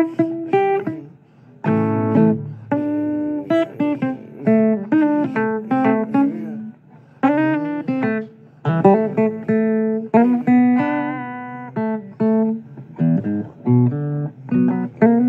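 Acoustic guitar playing a blues instrumental passage: a run of plucked single notes and chords, each ringing and dying away.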